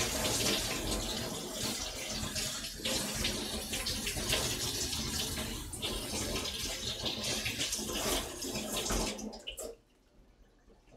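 Kitchen tap running into a stainless steel sink, splashing unevenly as vegetables are rinsed under it. The water is shut off about nine and a half seconds in.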